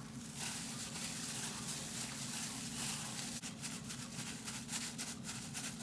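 Raw fish slices coated in cornstarch being mixed with oil in a bowl: a soft, steady wet rustling with faint small clicks.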